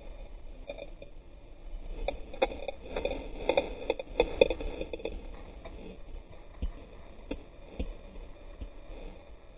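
Handling noise from a rod-and-reel fight with a king salmon: irregular knocks, scraping and rustle of the angler's sleeve and hands against the camera and reel, busiest in the first half and thinning out later.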